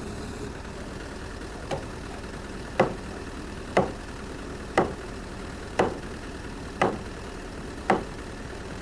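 Hammer blows on timber, struck steadily about once a second, seven in all, the first one lighter, over a steady engine hum.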